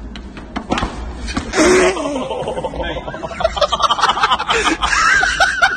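Young people's voices shouting and laughing, with one loud yell about a second and a half in and high-pitched laughter building toward the end.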